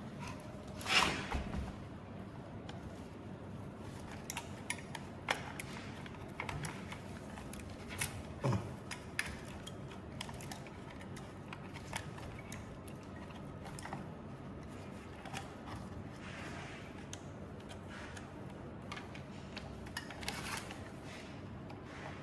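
Scattered light clicks, taps and knocks of small parts and tools being handled while a belt sander's stator and switch are taken apart, with a slightly heavier knock about a second in and another around eight seconds in.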